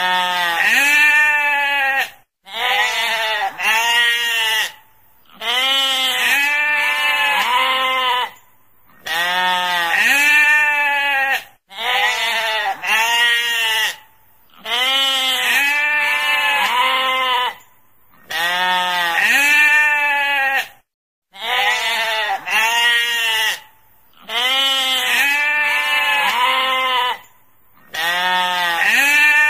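Sheep bleating: about ten long, wavering baas, one after another roughly every three seconds, with short silent gaps between them.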